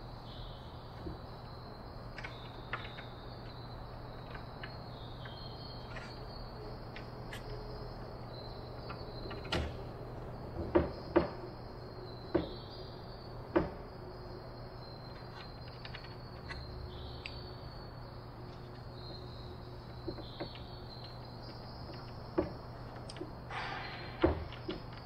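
Light clicks and knocks of a wooden tail-surface frame and its small hinge being handled and fitted by hand, with a few sharper knocks in the middle and another near the end. A steady low hum and a steady high-pitched buzz run underneath.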